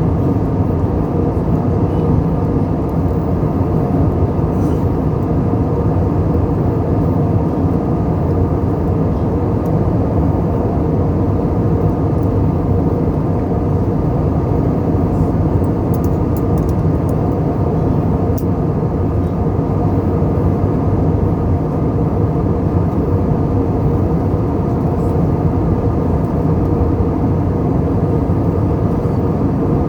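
Airbus A320 airliner noise: a steady low rumble that holds the same level and pitch throughout.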